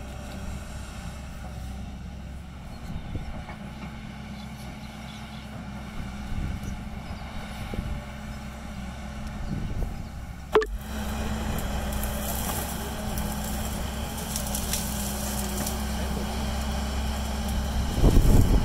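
JCB tracked excavator's diesel engine running steadily while it digs. There is a sharp click about halfway through, after which it runs louder, and a loud low rumble near the end.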